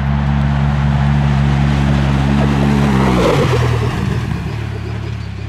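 Polaris RZR Pro XP side-by-side running flat out with its turbocharged twin-cylinder engine as it approaches and passes close by at speed. The engine note climbs slightly, drops sharply in pitch about three seconds in as it goes past, then fades as it moves away.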